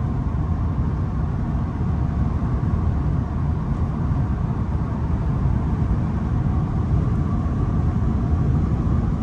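Steady road and tyre rumble inside a vehicle's cabin at highway speed, with a faint steady whine above it.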